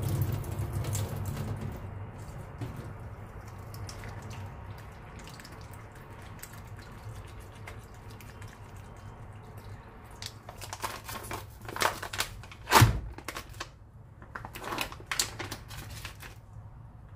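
Packing liquid from a soybean-noodle packet pouring and trickling onto a stainless-steel sink. Later the plastic packet crackles as it is handled, with a few clicks and one loud sharp knock about three-quarters of the way through.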